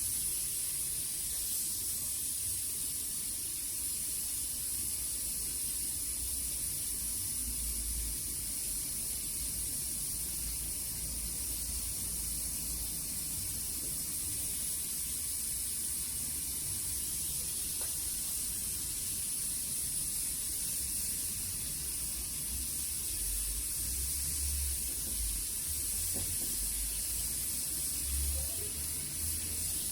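Oxy-fuel brazing torch flame hissing steadily while a leak on an air-conditioner evaporator coil is brazed.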